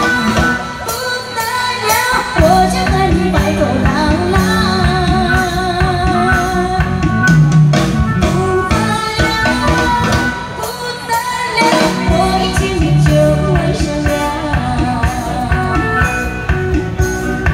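A woman singing a Mandarin pop song into a microphone over amplified backing music with guitar and drums. She holds notes with a wavering vibrato, and her voice drops out briefly about ten seconds in before she sings again.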